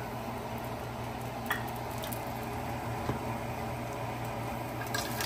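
Whole biryani spices sizzling gently in hot oil in a pot, with a few faint ticks, over a steady low hum.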